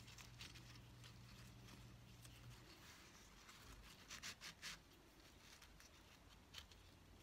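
Near silence with faint rustling of satin ribbon as thread is drawn through it and pulled tight by hand. A few soft scuffs come about four seconds in.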